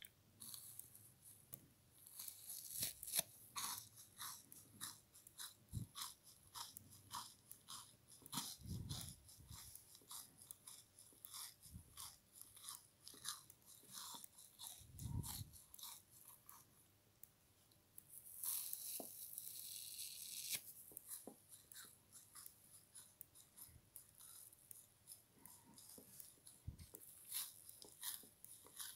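Frozen sponge strips being crunched: an irregular run of sharp crackles and crunches, denser a couple of seconds in and again about two-thirds of the way through, with two dull low thumps in between.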